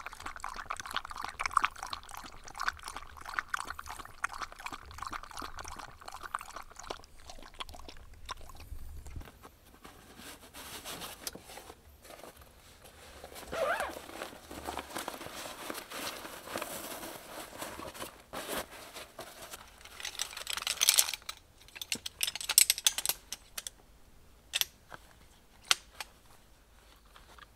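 Dog lapping water in a rapid run of small ticks for the first several seconds, then scattered crunching and crinkling, with a few sharp clicks near the end.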